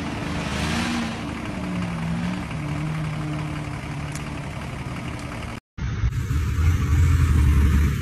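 Off-road 4x4 engine running, its pitch slowly rising and falling with the throttle. About two-thirds in, a sudden cut gives way to a louder, deeper low rumble.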